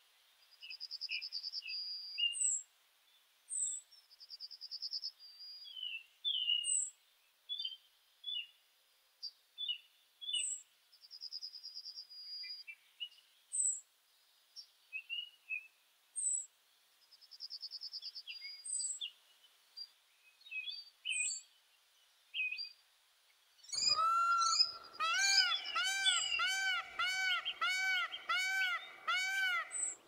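Small songbirds chirping, with short high notes and quick trills. About 24 seconds in, a louder peacock call starts: a rapid series of about ten rising-and-falling notes, roughly two a second, that runs on over the birdsong.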